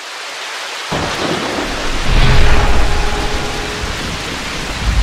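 Rain and thunder sound effect: a steady rain hiss swells in, then a deep rolling thunder rumble breaks in about a second later, loudest two to three seconds in.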